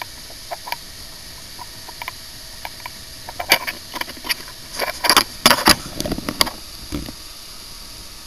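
Motorboat under way across choppy water: a steady running hiss and hum, with scattered clicks and a burst of loud knocks and splashes in the middle as the hull slaps the chop and spray flies.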